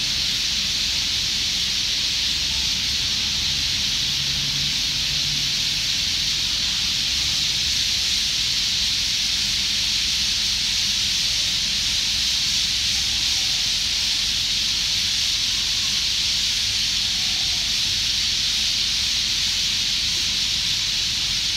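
A huge flock of small birds massed in the trees, their countless calls merging into one steady, dense, high-pitched chatter with no single call standing out.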